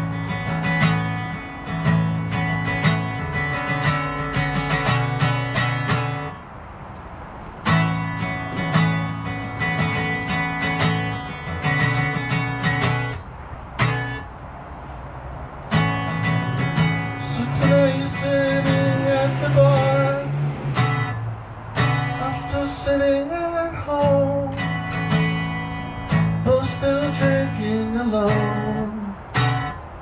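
Acoustic guitar strummed in an instrumental break between verses, stopping briefly twice. In the second half a higher, slightly bending melody line runs over the chords.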